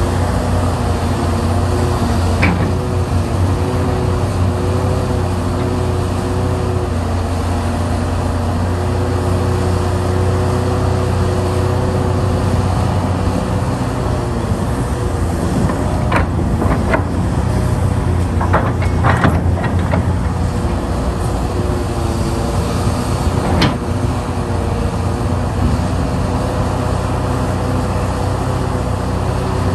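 Hitachi Zaxis 670 excavator's diesel engine running steadily under hydraulic load as the machine digs and swings, its pitch shifting slightly now and then. Sharp knocks and clatters of the bucket working in rock come once early and in a cluster around the middle.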